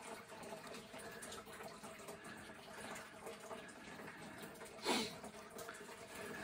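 Faint steady trickle of running water from an aquarium filter, with a brief sharp swish about five seconds in.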